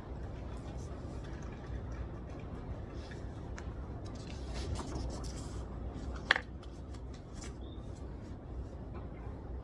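Library study ambience: a steady low room hum with faint scattered taps and rustles of desk work, and one sharp click about six seconds in.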